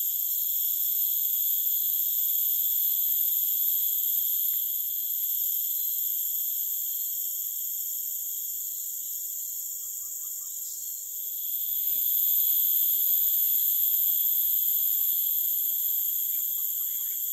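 Steady high-pitched drone of a tropical forest insect chorus, growing a little louder about two-thirds of the way through.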